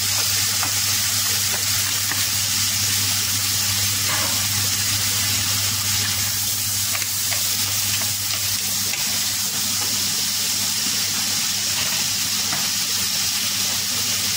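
Diced potato, carrots and green peas sizzling in oil and butter in a stainless steel pot: a steady high hiss of frying, with a low steady hum underneath.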